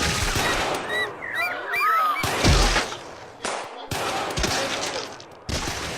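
A string of loud gunshots with ringing after each, a few seconds apart. Short chirping glides come between the first shots.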